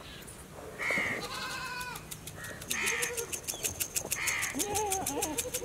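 Animal and bird calls: about four short, harsh calls spaced a second or more apart, with wavering bleat-like calls between them. Over these runs a fast, even high ticking that starts about halfway.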